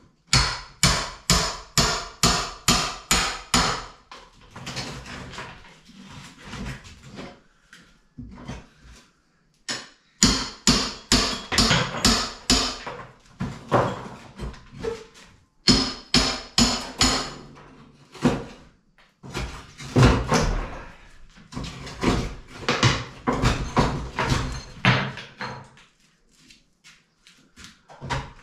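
A hammer pounding a plastered farmhouse wall to demolish it, in fast runs of blows at about three a second, with quieter knocking and clatter between the runs.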